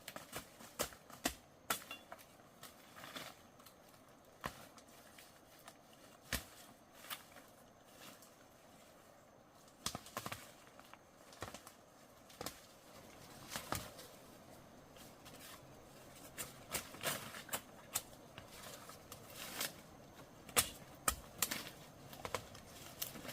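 Irregular sharp knocks, clicks and rustling of digging by hand in soil and leaf litter to uncover a wild tuber.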